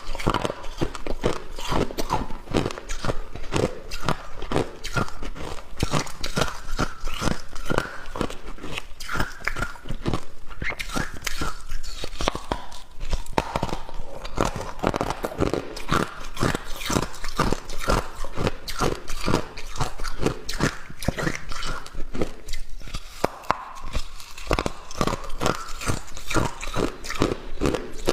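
Hard ice being bitten and chewed close to the microphone: a dense, irregular run of sharp crunches and cracks, several a second, without a break.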